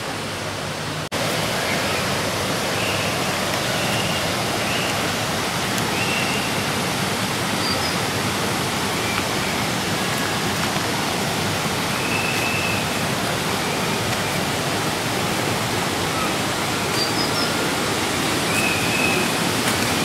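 Steady rush of a large rocky waterfall in heavy flow, a dense even noise. The sound drops out for an instant about a second in and comes back slightly louder. A few faint short high calls are heard now and then.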